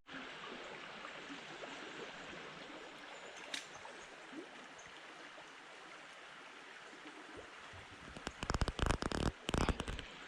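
Creek water running steadily over rocks. About eight seconds in, a quick irregular run of louder clicks and rustles comes in over it.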